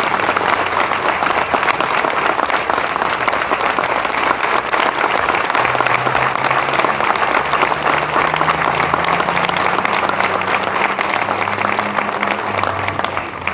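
Audience applause: a crowd of people clapping steadily, dying away right at the end.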